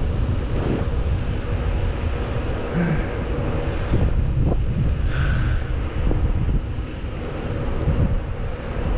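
Wind buffeting the microphone of a camera carried on a moving bicycle, a steady low rumble.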